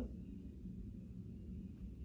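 Quiet pause with only faint, steady low background noise: room tone, with no distinct event.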